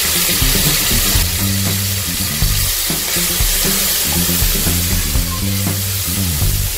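Sliced onions sizzling in hot oil in an aluminium pressure cooker as a ladle stirs them, under background music with a low stepping melody.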